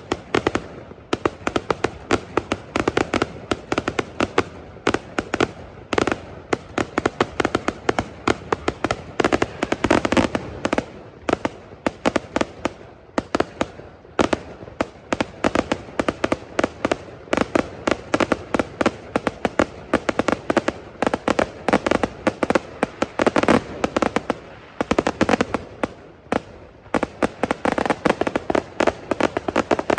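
Fireworks display: a dense, unbroken run of sharp bangs and pops, many each second.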